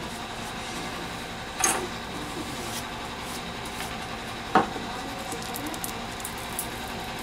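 Handling noise from a disassembled smartphone's metal mid-frame, with two short knocks, the louder about four and a half seconds in, over a steady background hum.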